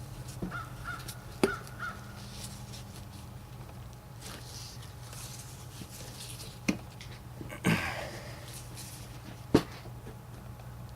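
A few sharp, isolated metal clicks and knocks as a turbo pedestal's back cover is worked onto the pedestal, over a steady low hum.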